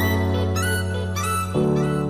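Background music: held keyboard chords with a melody on top, the chord changing about one and a half seconds in.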